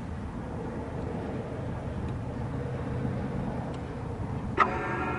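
Steady low rumble of vehicle and road noise. Near the end a sharp click, then music starts.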